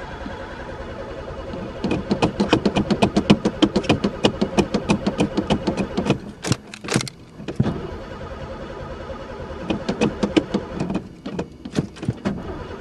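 An old Pontiac's engine being cranked over by the starter in two goes, a long one of about four seconds and a shorter one later, with even pulses about five times a second; it turns over but does not fire, which the owner fears is down to no spark.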